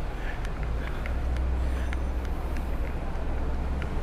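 Steady low rumble with faint scattered clicks: outdoor background and handling noise on a body-worn camera's microphone, carried while walking. The rumble grows a little stronger about a second in.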